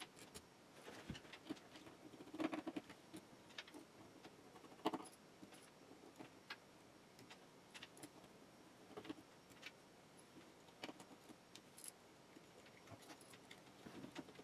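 Faint, scattered clicks and small metallic clinks of an Umarex Colt SAA Peacemaker CO2 revolver's parts being handled and taken apart on a cloth, with a couple of louder knocks about two and a half and five seconds in.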